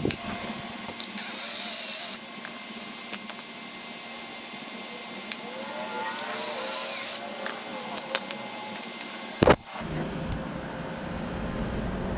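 Makita 18V cordless drill boring pocket holes through a Kreg pocket-hole jig into a wooden board: two high, hissing bursts of drilling about a second each, a few seconds apart, with small clicks of the bit and jig between them. A sharp knock comes near the end, then a steady low rumble.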